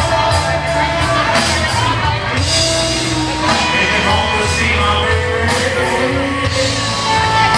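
Live rock band playing, with a singer over a steady bass line.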